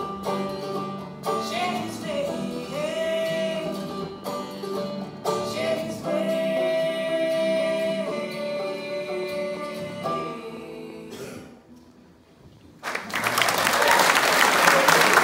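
Acoustic duo singing with banjo and acoustic guitar, closing the song on a long held note that fades away. About thirteen seconds in, audience applause breaks out and is louder than the music was.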